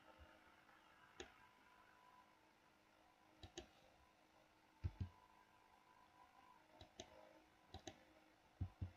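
A handful of faint computer mouse clicks over near silence, several of them in quick pairs.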